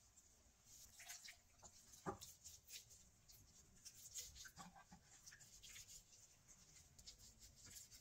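Faint, irregular wet squelching of gloved hands rubbing a thick yogurt-spice marinade into a raw whole chicken, with a louder squelch about two seconds in.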